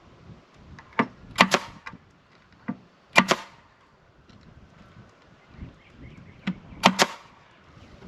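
Finish nailer firing nails into the wooden return-air box: a run of sharp shots in three clusters, about a second, three seconds and seven seconds in, often two in quick succession.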